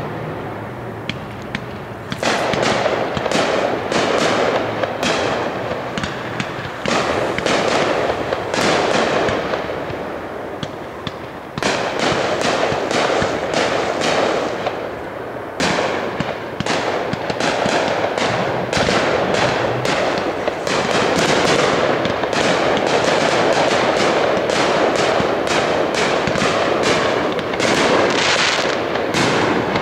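Aerial fireworks display: shells bursting in rapid succession, with sharp bangs and crackle. There is a short lull about ten seconds in, then an almost unbroken volley of bursts.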